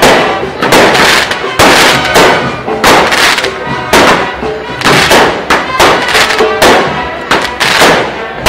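Aerial fireworks shells bursting in quick succession, sharp bangs about two a second, each with a short crackling tail.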